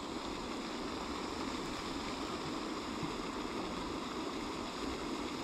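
Steady rushing and splashing of the pond's fountain aerator spraying water, an even noise with no separate events.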